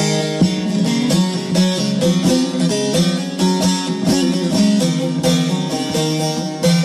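Instrumental Turkish folk (türkü) music: a plucked string instrument picks out the melody in quick successive notes.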